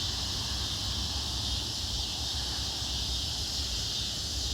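Steady, even chorus of night insects such as crickets, with a low steady rumble underneath.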